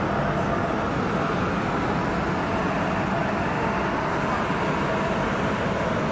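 Tubular-fabric heat-setting machine running: a steady mechanical hum with a couple of constant tones over a broad noise that does not change.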